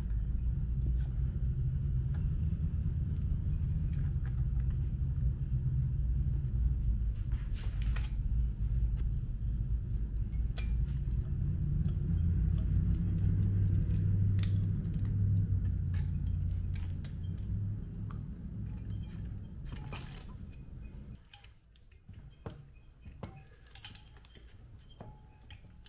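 Small metal clinks and taps of a cylinder, piston ring compressor and tools as the cylinder is worked down over the piston of a Honda CRF80 engine. A low steady rumble lies underneath for most of it and fades away near the end.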